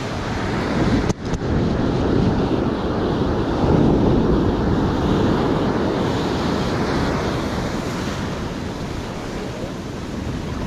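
Ocean surf breaking and washing up the beach, swelling and easing, with wind buffeting the microphone. A brief click about a second in.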